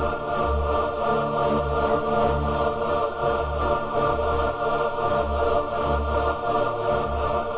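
Background music: sustained choir-like or pad chords over a slow pulsing bass.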